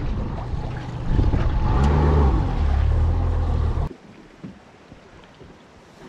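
Small aluminium fishing boat under way: a loud, low rush of wind on the microphone mixed with motor and water noise. It stops abruptly about four seconds in, leaving quiet river ambience.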